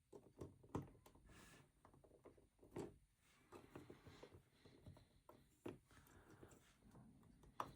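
Faint clicks and rustling of small LEGO plastic pieces being handled and pressed together, with a few sharper clicks scattered through.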